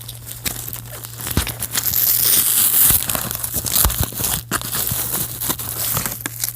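Cardboard and plastic doll packaging crinkling and tearing as a doll is worked out of its box, with irregular rustles and clicks throughout.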